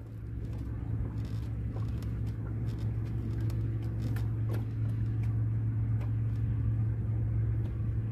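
A boat's motor running with a steady low hum, growing gradually louder over the first few seconds and then holding steady, with a few faint clicks above it.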